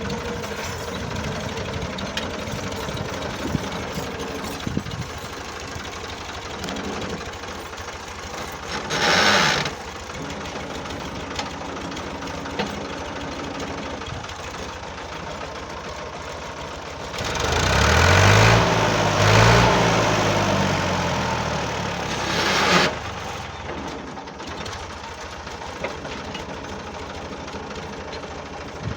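Tractor engine running steadily with a rapid knocking clatter. It swells louder for about five seconds from just past halfway, its pitch shifting, and there is a brief louder burst about a third of the way in.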